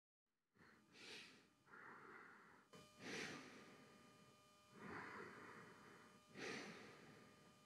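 Faint, slow breathing: a few soft breaths in and out from a man lying on his back, close to a headset microphone.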